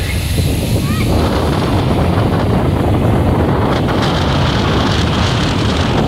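Rough sea surf breaking against a concrete breakwater, with strong wind buffeting the microphone. A few short gull calls sound in the first second.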